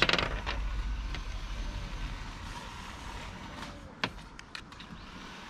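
Hard plastic clicks and taps from a knapsack sprayer's lance and nozzle parts being handled, with one sharp click about four seconds in and a few lighter ones after it. A low rumble fades away during the first few seconds.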